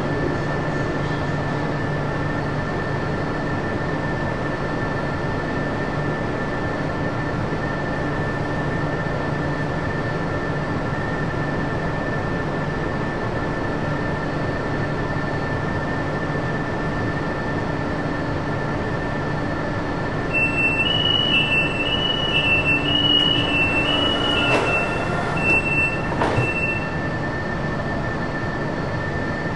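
A Fuzhou Metro Line 4 train stands at a station, its electrical equipment humming steadily at a few fixed pitches. About twenty seconds in, the door-closing warning sounds for about six seconds as a rapid beeping that alternates between two high pitches, with two thuds near its end.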